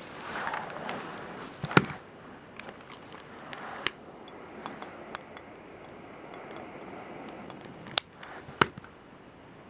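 Scattered sharp clicks and knocks over a steady background hiss. The loudest come close together about two seconds in and again near the end.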